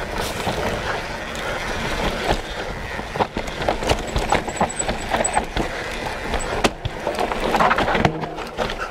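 Mountain bike riding down a dirt singletrack: steady rolling noise from the knobbly tyres on the ground, broken by frequent rattles and knocks from the bike as it goes over bumps and roots.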